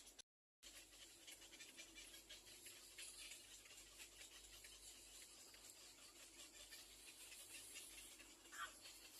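Near silence: a faint hiss with soft scattered rustling ticks, and one brief faint squeak near the end.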